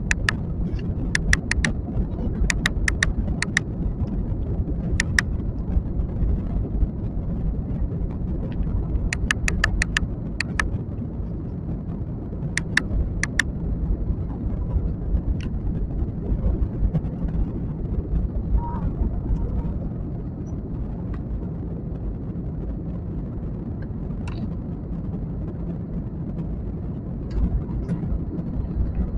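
Steady low roar of a jet airliner's engines and rushing air, heard from inside the passenger cabin. Clusters of short sharp clicks sound over it during the first half.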